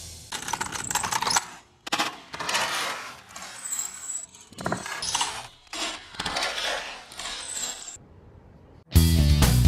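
A run of short clinks and clatters of small hard objects in uneven bursts, some with a brief high ring. Loud music comes in about nine seconds in.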